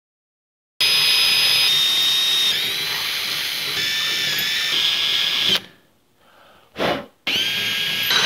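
DeWalt 14.4 V cordless drill boring out a bolt hole in a steel frame tube, its motor whine shifting in pitch as the bit cuts. It starts about a second in, stops about five and a half seconds in, gives a short burst, then runs again near the end.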